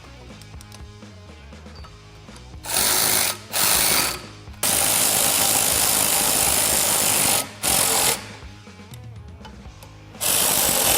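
A power driver spinning Allen-head screws tight in several bursts, the longest about three seconds, as the clamp screws of a nerf bar step are fully tightened. Quieter background music runs between the bursts.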